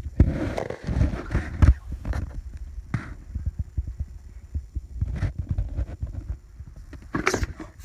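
Low, irregular thumping rumble, typical of a hand-held phone microphone being rubbed and shifted. A few sharp clicks come through, the loudest near the end.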